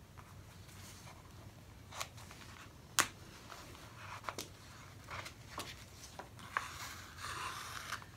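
Quiet handling of a sewn paper signature: a few light clicks and ticks, the sharpest about three seconds in, then a rasping hiss near the end as the linen-like sewing thread is drawn tight through the pierced paper.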